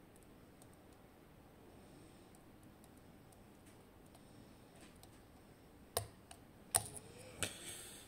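Lock pick and tension wrench working the spool and Christmas-tree pins of an Assa 700 pin-tumbler cylinder: faint scattered ticks, then a few sharper metallic clicks over the last two seconds as the cylinder is picked open.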